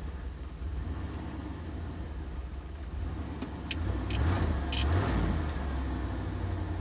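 1988 Chevy K2500 pickup's gasoline engine running at idle, just started after sitting for about four months, heard from inside the cab. It swells twice, about four and five seconds in, as the engine is revved briefly.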